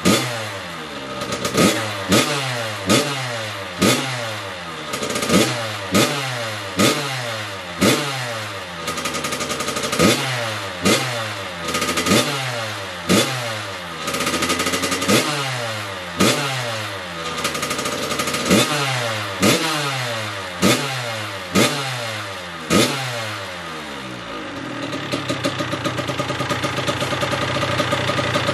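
2012 Kawasaki KX100's two-stroke single-cylinder engine being warmed up with quick throttle blips, about one a second, each rev dropping straight back down. About 24 seconds in the blipping stops and the engine settles into a steady idle.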